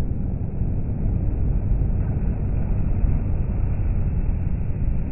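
Low, steady rumble of a Mercedes-Benz Actros lorry and its curtainside trailer driving past on a motorway, tyre and engine noise with traffic behind, slowed down and deepened by slow-motion playback.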